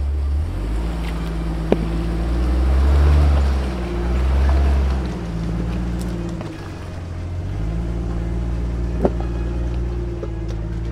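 Background music with a deep, heavy bass line whose notes change in steps, and two sharp clicks, one about two seconds in and one near nine seconds.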